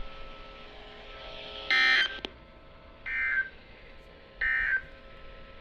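NOAA Weather Radio SAME end-of-message data bursts, three short, harsh buzzy bursts a little over a second apart, the first the loudest. They signal the end of the severe thunderstorm warning broadcast. A faint steady hum lies underneath.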